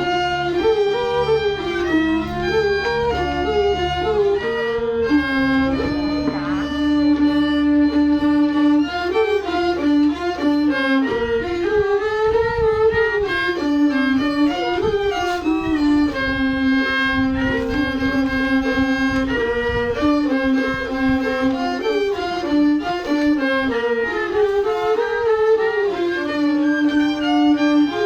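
A bowed fiddle plays a sliding, ornamented solo melody. A steady low drone sounds underneath for roughly the first eleven seconds.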